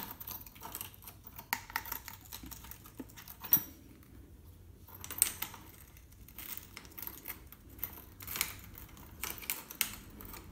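Scattered light clicks and clacks of metal parts being handled as a new bicycle saddle's rails are worked into a two-bolt seatpost clamp and a hex key is fitted to a clamp bolt, with a short lull about four seconds in.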